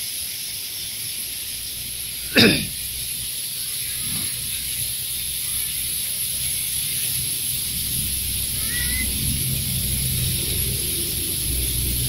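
Steady hiss of a thin dry-season waterfall splashing down a rock face into a shallow pool, growing a little louder and fuller near the end. A short shout cuts in about two and a half seconds in.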